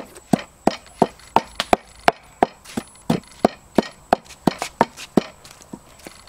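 A knife or cleaver chopping rapidly on a wooden board, about three even chops a second, stopping about five seconds in with a couple of lighter taps after.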